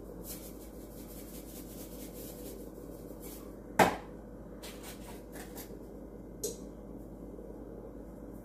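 Spice containers being handled and set down on a kitchen counter: scattered light clicks and taps, with one sharp knock about four seconds in, over a steady low hum.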